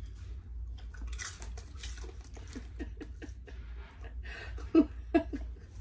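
Coated popcorn being chewed in small crunches, with snack bags rustling as hands reach in; two short, louder sounds near the end.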